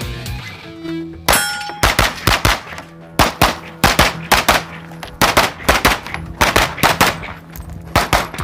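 Rapid gunfire from a short-barrelled Sig Sauer MPX pistol-caliber carbine, with the shots coming mostly in quick pairs, and a steel target ringing when it is hit about a second in.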